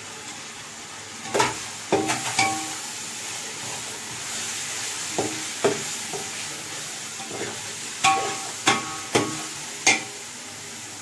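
Metal spoon stirring sautéing onions, tomatoes, coriander and mint in an aluminium pot, knocking against the pot about nine times in three short runs, over a faint steady sizzle of the frying mixture.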